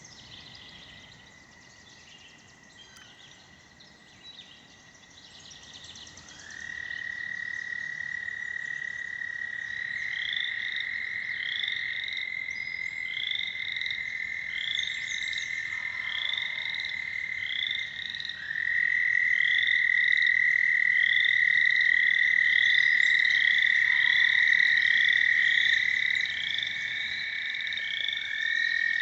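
Several American toads giving long, steady, high trills that overlap, each lasting many seconds. The chorus grows louder about six seconds in and again past the middle as new callers join. A series of short rising chirps, about one a second, runs over the top from about ten seconds in.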